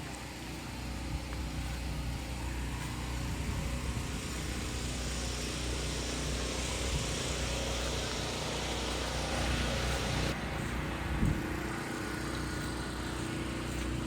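Golf cart driving along, its motor and tyres giving a steady low drone with a wash of road and air noise; the higher noise drops away about ten seconds in.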